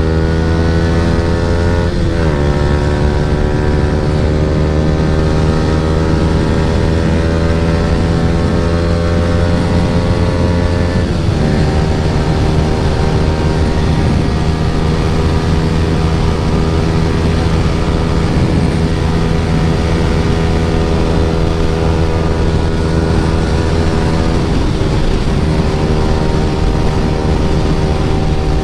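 Yamaha R15 V3's single-cylinder engine running through an Akrapovic full-system exhaust while riding. The engine note climbs slowly, drops at a gear change about eleven seconds in, then holds steady, with another change in pitch near the end, over a constant rush of wind.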